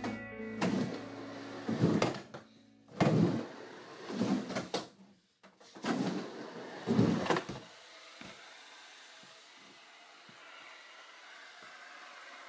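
Skateboard wheels rumbling across an indoor micro mini ramp as the rider goes back and forth, a run of swelling rolls about a second apart. About seven and a half seconds in the riding stops, leaving a faint hiss and a few small knocks.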